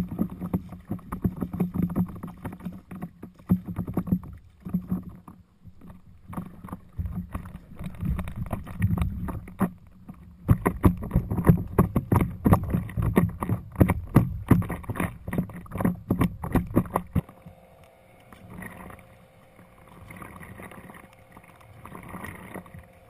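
Water splashing and slapping against a stand-up paddleboard's hull as it is paddled, heard close to the board's deck, with the irregular wash of paddle strokes. About three-quarters of the way through it drops suddenly to quieter lapping.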